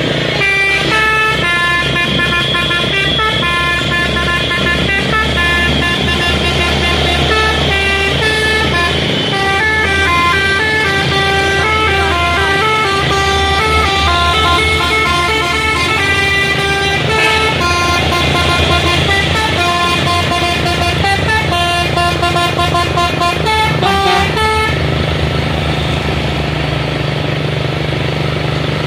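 Multi-tone musical air horn of a bus, a 'telolet' horn, playing a tune of quick stepped notes that stops about 25 seconds in. Underneath, heavy diesel engines run with a steady low hum.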